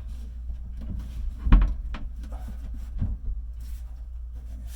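A few knocks and clunks, as of wood being bumped under a cabinet. The loudest is about a second and a half in, and a smaller one comes about three seconds in, over a steady low hum.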